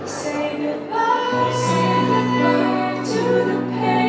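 Fireworks show soundtrack playing loudly over outdoor loudspeakers: orchestral music with female singing and choir on long held notes. A short bright splash of high hiss comes about every second and a half.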